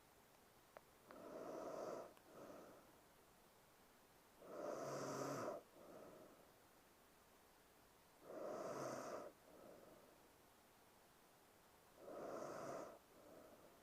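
A sleeping young woman breathing slowly and audibly, with light snoring. There are four breaths, roughly every three and a half seconds, each a longer, louder breath followed by a short, softer one.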